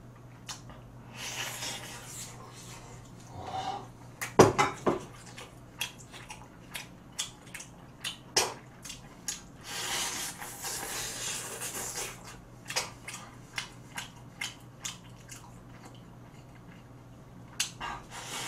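Close-up eating sounds of meat being bitten, chewed and sucked off a gamjatang pork bone: wet mouth clicks and smacks, two longer slurping stretches near the start and in the middle, and one loud knock about four and a half seconds in.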